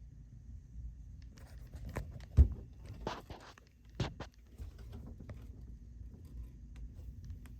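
A few sharp knocks and clicks over a low steady rumble. The loudest knock comes about two and a half seconds in, and another about four seconds in.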